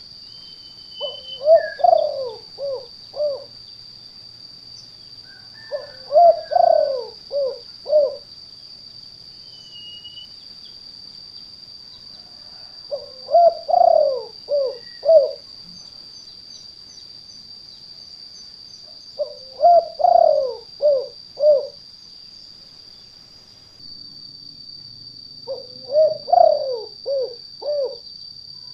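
Spotted dove (tekukur) cooing: five phrases of about five coos each, every five to six seconds, in a 'kuk 2' style calling song. A steady high-pitched hum runs underneath.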